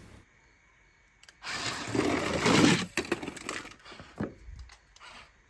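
Die-cast toy cars tumbling down a plastic slide into a pit of plastic balls: a loud rattling clatter lasting about a second and a half, then a few light knocks.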